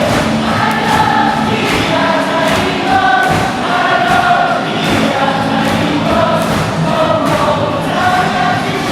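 Baseball stadium crowd singing a KIA Tigers team cheer song together in unison, the melody carried by massed voices over a steady beat.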